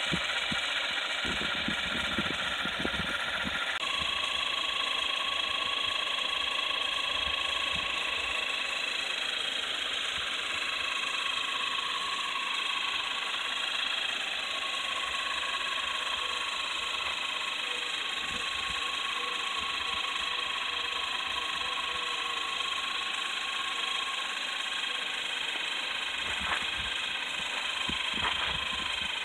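The small electric motors of a popsicle-stick tandem-rotor model helicopter whining steadily as they spin its two rotors. The whine changes pitch abruptly about four seconds in and then drifts slightly.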